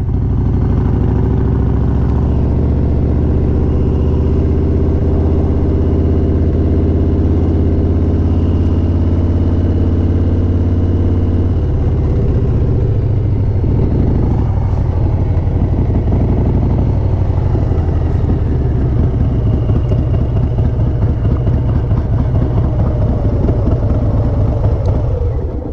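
Harley-Davidson Sport Glide's V-twin engine running as the motorcycle rides slowly, heard from the rider's seat. The note holds steady for the first half, then turns more uneven with the throttle about halfway in.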